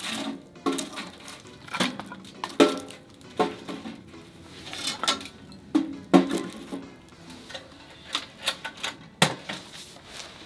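Cookware and utensils clinking against one another: a dozen or so irregular knocks and clinks, each ringing briefly.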